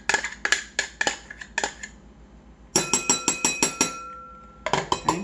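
A spoon scraping and knocking against a measuring cup while aloe vera gel is scooped out. First comes a string of sharp clicks. About halfway through there is a quick run of about eight ringing taps, then a few more clicks near the end.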